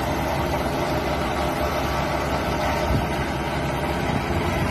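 Truck engine idling steadily, a low even rumble.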